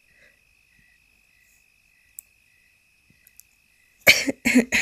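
Faint cricket chirping: a steady high trill with a softer chirp repeating two or three times a second. About four seconds in, a woman's voice breaks in briefly and loudly.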